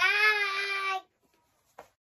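A young girl's high-pitched, drawn-out vocal call, held on a steady pitch for about a second and then cut off, followed by a faint click near the end.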